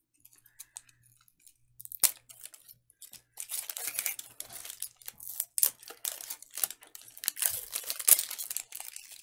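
Plastic wrapper on a Mini Brands capsule ball being torn along its perforated strip and peeled off. A few faint clicks at first, then continuous crackly tearing and crinkling from about two seconds in that grows denser.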